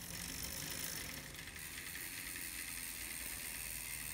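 Mountain bike rear wheel spinning in the stand: a steady whirring hiss with a faint rattle.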